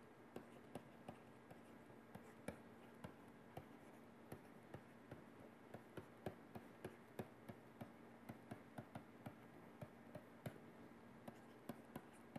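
Faint, irregular taps and scratches of a stylus writing on a tablet screen, a few a second.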